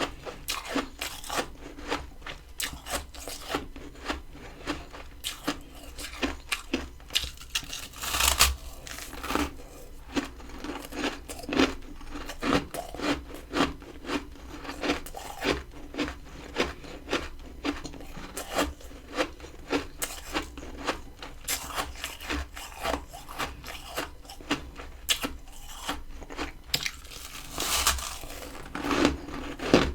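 Freezer frost crunching as it is chewed close to the microphone: a stream of sharp, crisp crunches, about one or two a second, with louder, longer crunching about 8 seconds in and again near the end.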